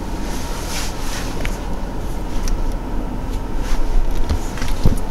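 Steady low hum heard inside a 2019 BMW X6 35i's cabin, with scattered light clicks and a few soft knocks near the end.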